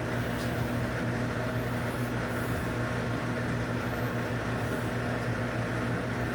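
Steady low machine hum with a constant buzzing tone.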